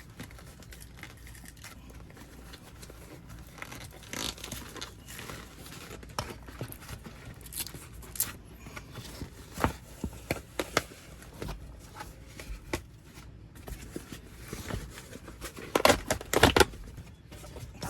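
Old upholstery cover being peeled and torn away from the foam padding of a Toyota Camry center console lid, in intermittent tearing and crinkling rasps, with a few louder rips near the end.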